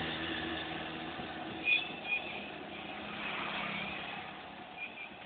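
Road traffic heard from a moving vehicle: steady engine and tyre noise that slowly fades, with two short high-pitched chirps about two seconds in.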